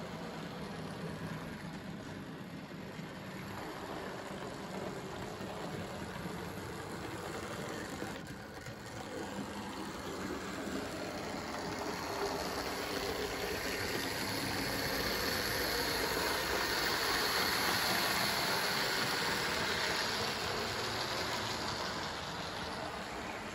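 00 gauge model of a Princess class steam locomotive running on the layout with its coaches: the steady whir of its small electric motor and the rumble of wheels on the rails, growing louder about halfway through as the train passes close, then easing near the end.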